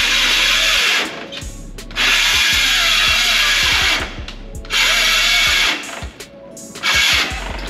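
Milwaukee cordless circular saw on a compact battery cutting OSB, running in four loud bursts with short drops in level between them.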